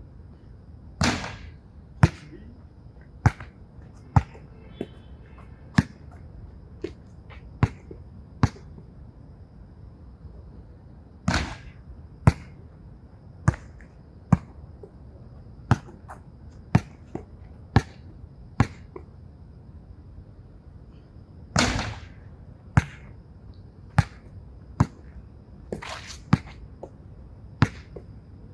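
A basketball bouncing on an outdoor court: a string of sharp knocks about once a second. Three times, about ten seconds apart, a louder hit rings on, the ball striking the backboard on a bank-shot free throw.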